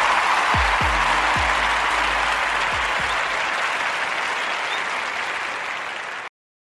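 Applause, with a few low drum hits that drop in pitch from the music, fading slowly and cutting off about six seconds in.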